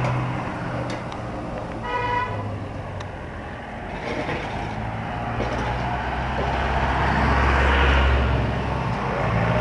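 Road traffic: a short, single vehicle horn toot about two seconds in, then a motor vehicle's engine rumbling louder as it passes close, loudest near the end.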